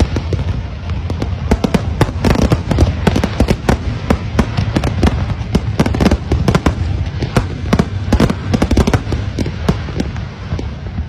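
Fireworks display: a dense, rapid barrage of bangs and crackles over a continuous low rumble, thinning a little near the end.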